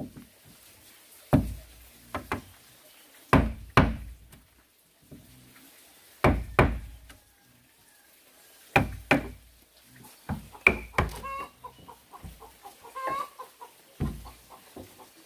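Sharp knocking blows on wood, mostly in pairs, every two to three seconds. A chicken clucks for a few seconds about two-thirds of the way through.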